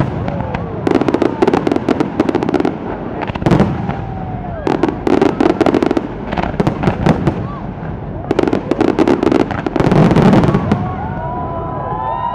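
Fireworks display going off: loud clusters of rapid crackling bangs, about seven bursts a second or so apart, with spectators' voices between them.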